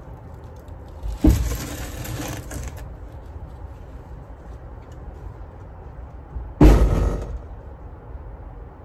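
Hand tools and gear being picked up and handled: two loud clattering knocks, one about a second in that trails off over a second or so, and a shorter one about six and a half seconds in.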